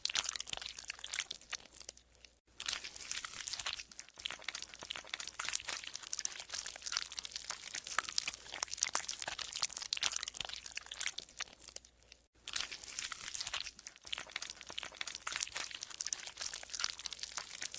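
Golden slime being squeezed and kneaded by hand, giving a dense run of fast crackling, squelching pops. It briefly goes quiet twice, about two and a half seconds in and again about twelve seconds in.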